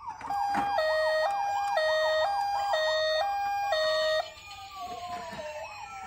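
Electronic siren from a battery-powered toy ambulance: a two-tone hi-lo pattern switching about once a second, with a faster wailing tone over it, cutting off suddenly about four seconds in. A fainter falling siren tone follows.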